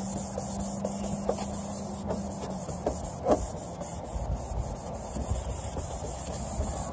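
Alcohol prep towelette rubbing back and forth over a sanded plastic headlight lens, a steady scrubbing that wipes and preps the surface for clear coat.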